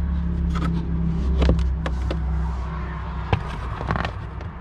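Rubber liner being pulled out of a Jeep Wrangler JL's top-dash tray: a few sharp scrapes and clicks over a steady low hum.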